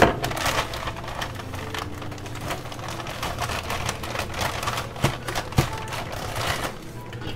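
Plastic noodle packet crinkling and rustling as it is handled, with a few sharper clicks about five seconds in.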